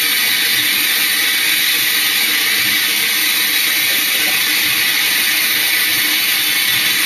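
Steam locomotive hissing steam, heard from the cab footplate: a loud, steady hiss that does not change.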